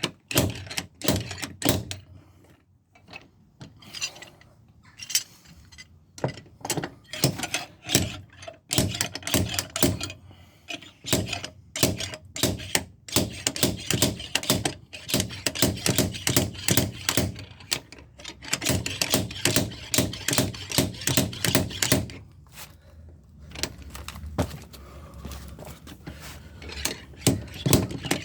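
Slide hammer repeatedly slamming its sliding weight against the stop to pull a dent out of a van's steel sill: runs of sharp metallic knocks, several a second, with short pauses between runs.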